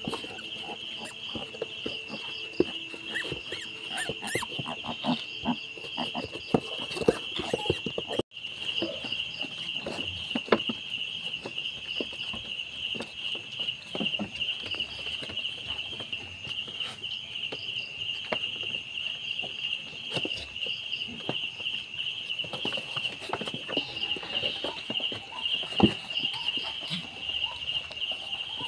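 Insects chirping in a steady, fast-pulsing trill, with scattered clicks and knocks. The sound cuts out briefly about eight seconds in.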